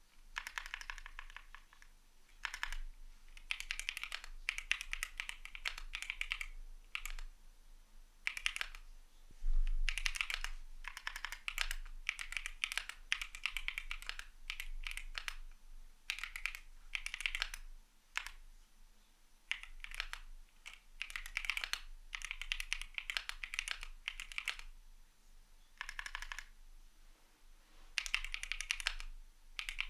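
Typing on a CIDOO V75 mechanical keyboard with Matte switches: runs of quick keystroke clacks broken by short pauses, with one heavier low thud about a third of the way in.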